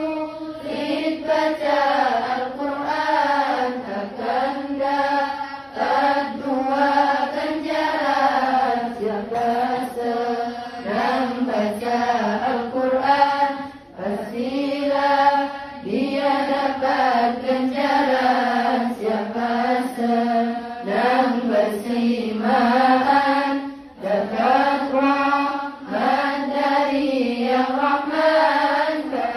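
A group of girls chanting sholawat (Islamic devotional praise) together in long sung phrases, with brief breaks between lines about halfway through and again near the end.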